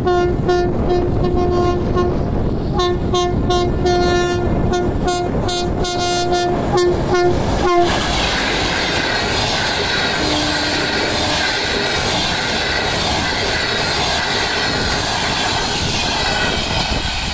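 A diesel locomotive's air horn sounds in a string of blasts as it approaches, ending in several quick short toots. About eight seconds in the passenger train passes close at speed with a loud rush of wheels on rail and the clatter of the coaches, with some wheel squeal toward the end.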